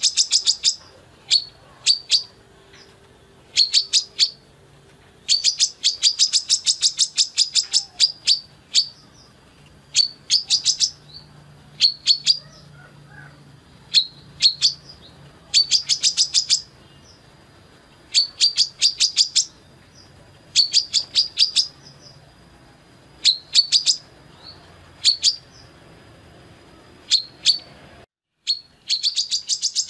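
Female brown-throated sunbird (kolibri kelapa) singing: repeated bursts of rapid, high, sharp chirps every second or two. Near the end, after a brief break, it gives a longer unbroken run of fast chirps.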